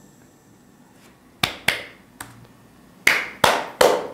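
One person clapping their hands. Two claps come about a second and a half in, then steady clapping at about three claps a second begins near the end.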